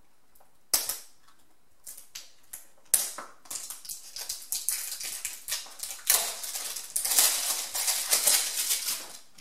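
Packaging of a small eye-mask box being opened by hand: a sharp snap about a second in and another about three seconds in, then a long run of crinkling and rustling that grows louder towards the end.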